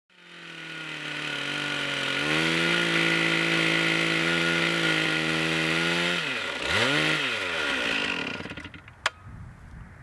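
Gasoline chainsaw running at full throttle while cutting into a large log, its engine note held steady. About six seconds in, the pitch drops, rises once and drops again as the throttle is let off, then the sound fades. A sharp click comes near the end.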